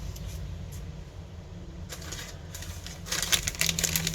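Rapid small clicks and rustles of hands and tools handling small smartphone parts, starting about three seconds in, over a low steady hum.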